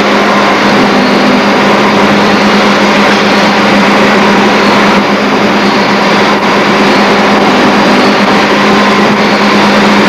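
Steady, loud machinery din of an induction-furnace shop floor, with a constant hum under it and no let-up.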